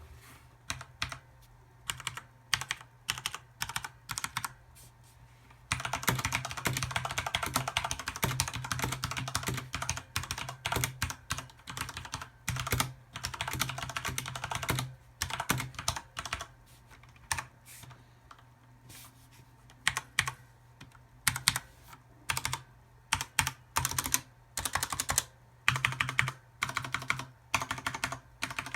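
Corsair K70 RGB mechanical keyboard with Cherry MX Red linear switches being typed on: separate single keystrokes at first, then about six seconds in a run of fast continuous typing for about ten seconds, followed by slower clusters of key presses.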